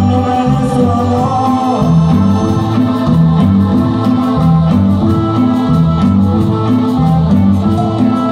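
Band music from a Christian Latin group: a bass line stepping from note to note in a steady, even rhythm under long held chords.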